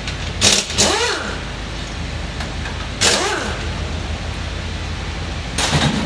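Compressed-air blow gun fired in about four short hissing bursts, two of them with a whistle that rises and falls in pitch, over a steady hum.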